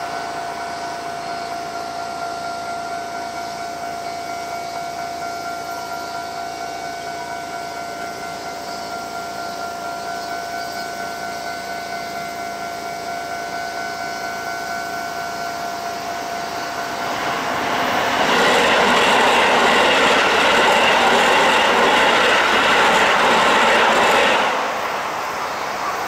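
Japanese level-crossing warning bell ringing steadily. About seventeen seconds in, a train passes through the crossing, much louder than the bell, for about seven seconds, and then cuts off.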